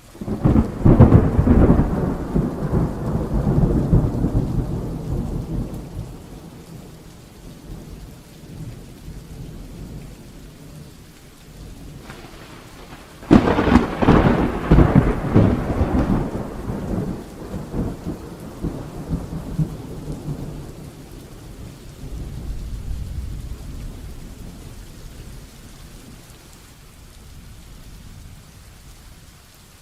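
Heavy rain falling steadily, with two loud claps of thunder. The first breaks right at the start and rolls off over about six seconds. The second, sharper one comes a little before halfway and rumbles on for several seconds, followed by a softer low rumble a few seconds later.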